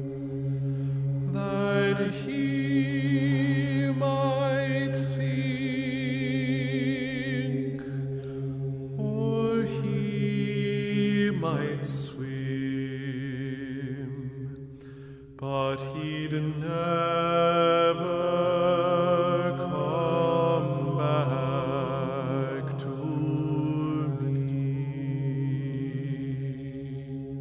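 A voice chanting long held notes with heavy vibrato over a steady low drone, in three long phrases, the last coming in after a short lull about halfway through.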